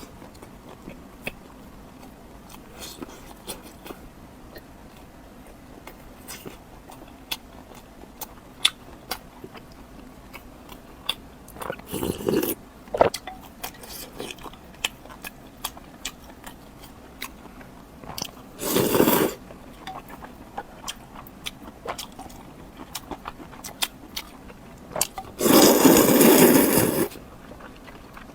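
Close-miked eating sounds: a person chewing and biting, with many small wet mouth clicks. Louder bites or crunches come about twelve and nineteen seconds in, and the loudest, lasting about a second and a half, comes near the end.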